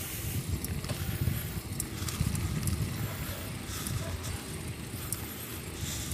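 Wind buffeting the microphone of a moving bike: a low, uneven rumble, with scattered light clicks.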